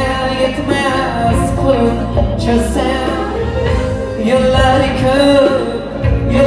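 Uzbek pop song played live: a male singer sings into a microphone over keyboard, electric guitar and percussion, all amplified through loudspeakers.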